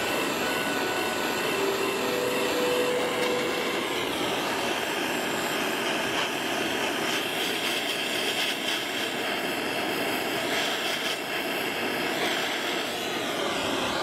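Handheld gas soldering torch burning with a steady, loud rushing hiss while heating a jewellery piece for soldering.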